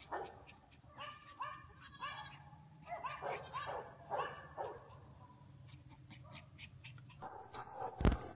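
A dog yipping: a run of short, high, arching calls during play-chasing. A sudden loud thump comes near the end.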